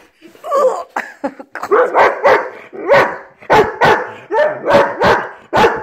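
Weimaraner barking insistently, a run of about a dozen short pitched barks with no pause between them: demand barking at her owner.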